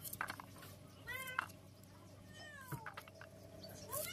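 A cat meowing about three times, short calls that rise and fall in pitch. Between the calls come a few sharp clicks as karonda berries are cut against a metal blade over a steel plate.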